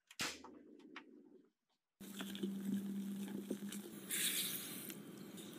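A click as the electric cooker's control knob is turned just after the start. From about two seconds in, cocoa powder is shaken through a fine metal mesh sieve with a light patter, brighter for about a second near the end.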